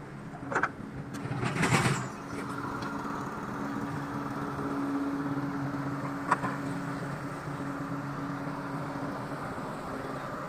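Diesel engine of a Tadano truck-mounted crane running steadily as it winches the hook line up, a little louder in the middle. A brief rush of noise comes about two seconds in, and a sharp click a little after six seconds.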